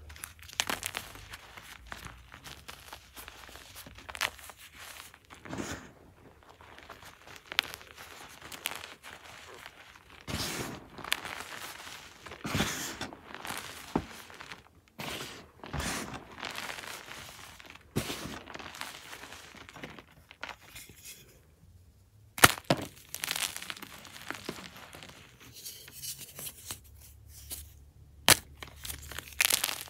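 Blocks of gym chalk crushed and crumbled by hand: soft, irregular crunching and crumbling of compressed chalk powder, with a few sharper snaps as pieces break off, the loudest about two-thirds of the way through.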